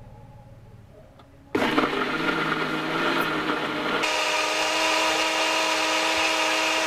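Small personal blender switching on about a second and a half in and grinding chunks of ginger and garlic in a little water. About two and a half seconds later its sound settles into a steady, even whine as the mix turns to a smooth paste.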